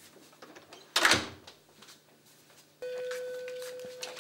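A door shutting with one sharp thud about a second in, then a steady electronic buzzer tone that holds for about a second and a half near the end.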